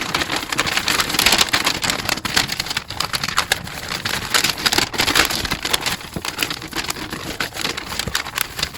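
Close handling noise: continuous crackling and rustling with many small clicks, as the plastic smoke alarm and its parts are handled and shifted.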